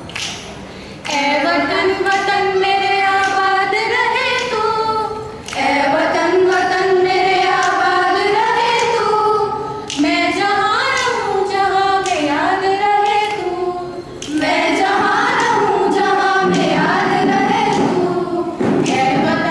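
A group of girls singing together without instruments, in long held phrases with short pauses for breath between them.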